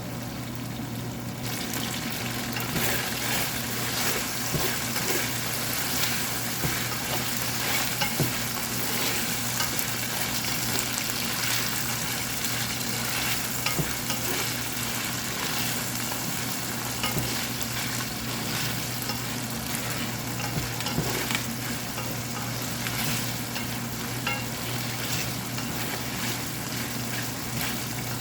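Shrimp sizzling in hot oil as they are stir-fried, with a utensil clicking and scraping against the pan now and then. The sizzle grows louder about a second and a half in.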